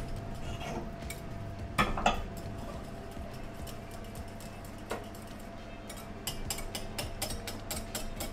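A whisk clinking and scraping against a saucepan as thickened lemon curd is whisked at the boil. There are two louder knocks about two seconds in, and a run of quick, regular clicks near the end.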